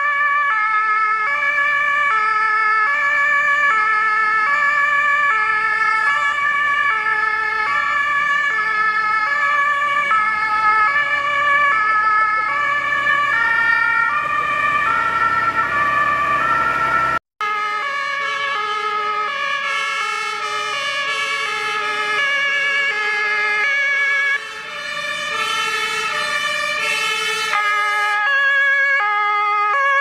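German two-tone fire-brigade sirens (Martinshorn) on several vehicles driving past. Their alternating high and low notes overlap out of step with each other, and the sound drops out for a moment just past halfway.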